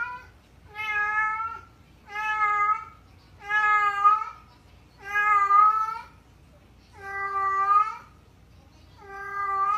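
A house cat meowing loudly over and over: about seven long, drawn-out meows a little over a second apart, calling out for its owner.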